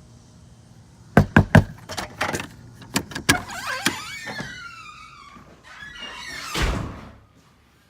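Three quick, loud knocks on a door about a second in, then scattered knocks and a high squeal that slides down in pitch, and a brief swelling rush near the end.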